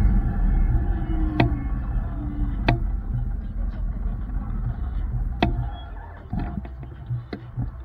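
Low vehicle rumble that fades steadily, with three sharp clicks spaced a second or more apart.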